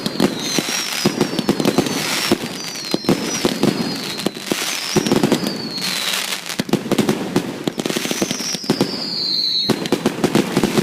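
Fireworks going off: a dense, continuous crackle of small bangs with high whistles that wobble and fall in pitch, and one longer falling whistle near the end.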